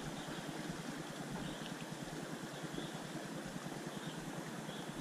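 Steady outdoor background noise, an even hiss with no distinct events, with a few faint high chirps scattered through it.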